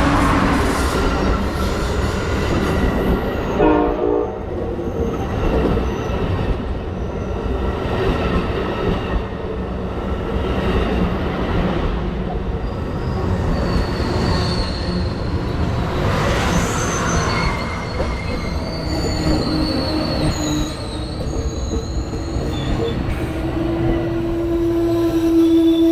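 Amtrak Coast Starlight passenger train rolling by with a steady loud rumble of wheels on rail. A brief pitched tone sounds about four seconds in. From about halfway, thin high-pitched wheel squeal rises above the rumble, and a strong steady tone joins near the end.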